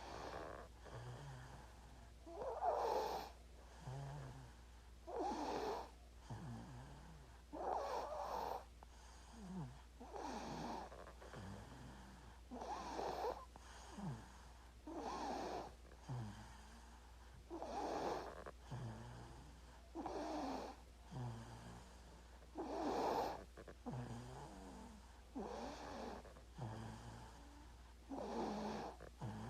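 A sleeping baby snoring, one snoring breath about every two and a half seconds in a steady rhythm.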